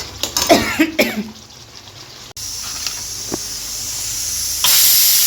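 Fish frying in hot oil in a pan, a steady sizzle that grows louder and brighter near the end, after a short vocal sound like a cough in the first second.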